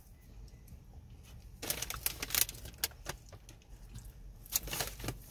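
Crackling, clicking rustle of a paper food container being handled while eating, in two short bursts, about a second and a half in and again near the end.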